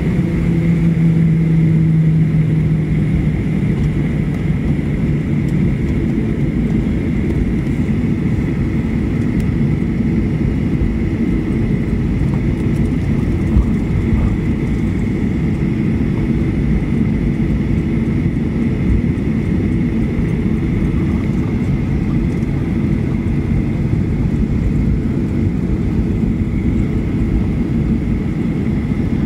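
Jet engines of an airliner heard from inside the cabin while on the ground: a steady, loud rumble with a constant high whine. A lower hum dips slightly in pitch and fades out in the first few seconds.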